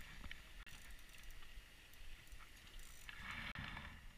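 Faint handling noise as a hooked yellow bass is pulled up through a hole in the ice, with a brief splashy rush about three seconds in as the fish clears the water.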